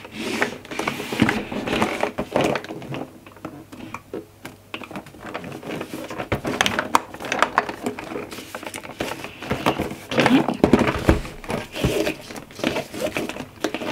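Rigid cardboard gift box being handled on a wooden table: scrapes, taps and rustles as it is turned over, with a heavier knock about ten seconds in as it is laid down, then a ribbon tie being pulled loose.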